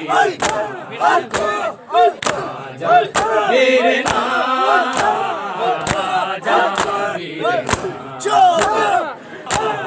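A crowd of men chanting together, with sharp slaps of hands striking bare chests in matam, roughly once a second.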